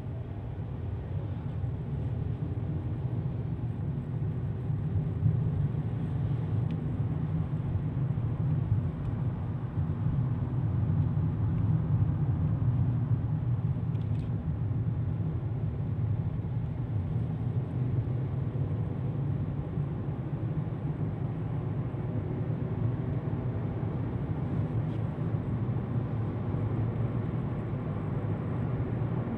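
Steady low rumble of a car's engine and tyres heard from inside the moving car's cabin, growing a little louder over the first few seconds. A faint click about halfway through.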